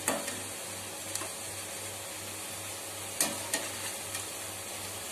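Bread slices sizzling steadily as they deep-fry in hot oil in a steel kadai, browning to a golden colour. A perforated slotted spoon turning them clicks against the pan near the start and twice about three seconds in.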